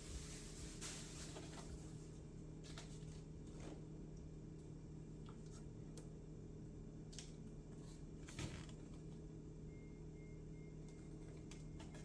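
Faint handling noises from unpacking an RC plane kit: a few light rustles and clicks of foam and cardboard packaging over a steady low hum, with a faint run of short high beeps near the end.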